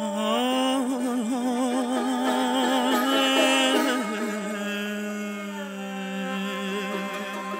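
Persian traditional music with the tar: a sustained melody line wavers with fast ornaments and vibrato, then settles into a long held note about four seconds in.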